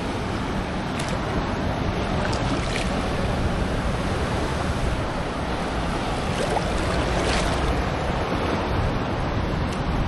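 Ocean surf washing steadily with wind buffeting the microphone, an even rush of noise.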